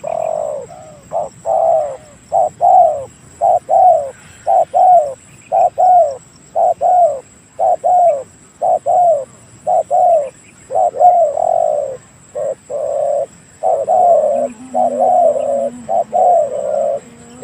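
Spotted dove (tekukur) cooing over and over: short mellow coos, each bending down slightly in pitch, one or two a second in repeated phrases.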